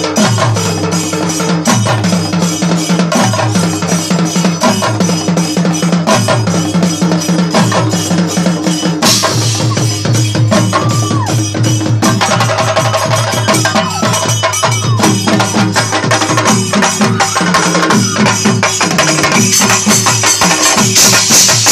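Live percussion jam: a kit of shallow metal drums and cymbals played together with stick-beaten barrel drums, in a fast, dense, steady rhythm. Cymbal washes swell about nine seconds in and again near the end.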